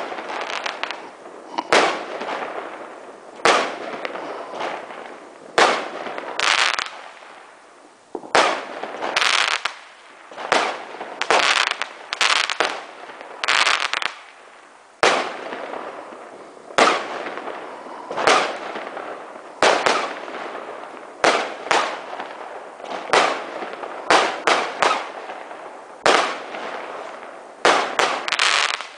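Aerial firework shells bursting in the sky, a long run of sharp bangs about one a second, each trailing off in echo, coming closer together in the last third.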